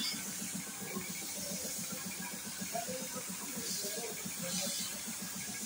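Compressed-air gravity-feed paint spray gun hissing steadily as it sprays paint onto a car body, with a rapid low pulsing underneath.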